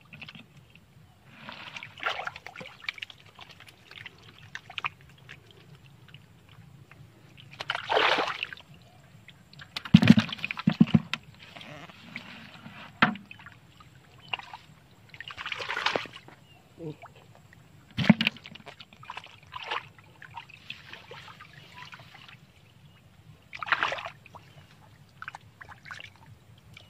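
Hands splashing and sloshing in shallow muddy water while groping for fish, in irregular bursts every few seconds, with a few sharp knocks.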